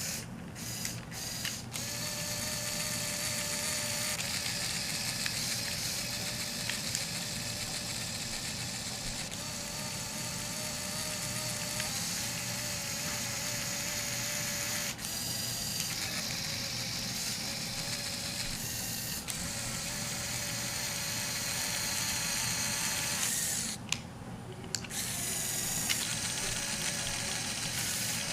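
Electric motor and plastic gear train of a Lego Technic truck running with a steady whine. It stops briefly a few times and starts again.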